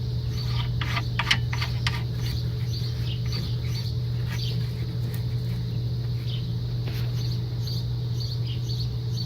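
Hand tools tightening bolts, most likely a ratchet wrench: a cluster of sharp clicks in the first two seconds, then sparse light ticks. A steady low hum runs underneath throughout.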